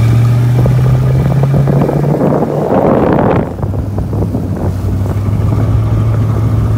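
Toyota Land Cruiser 100's engine running at a steady pace while the SUV drives on a gravel forest road, with wind buffeting the microphone. A louder rush of wind and road noise swells about two seconds in and drops away a little after three seconds.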